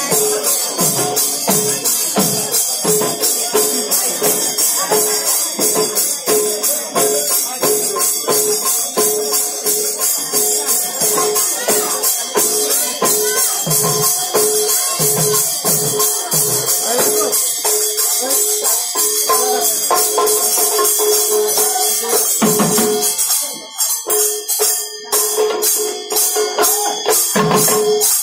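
Manipuri pung barrel drums beaten by dancing drummers, with a dense, fast jingling of cymbals over the drum strokes; the playing drops away briefly about 23 seconds in, then picks up again.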